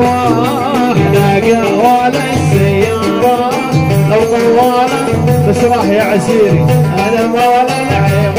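Loud Arabic party music over a sound system: a wavering, ornamented melody line over a steady repeating drum beat.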